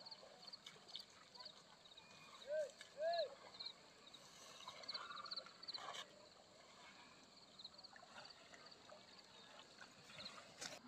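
Faint animal calls: short high chirps in small groups repeating throughout, and two short rising-then-falling calls about two and a half and three seconds in, which are the loudest sounds.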